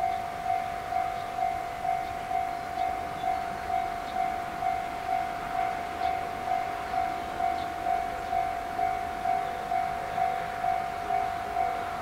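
Japanese level-crossing warning bell ringing: an electronic ding repeated evenly about twice a second, signalling that a train is approaching.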